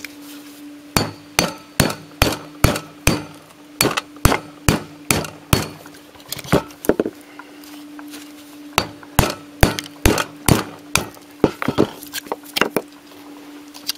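Hammer blows on a steel drift driving the magnetic shunts (small packs of laminations) out of a microwave oven transformer's core: sharp metal-on-metal strikes about two to three a second, with a short pause about halfway.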